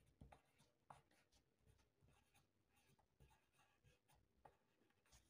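Faint, irregular scratching of a coloured pencil writing a word on a paper workbook page.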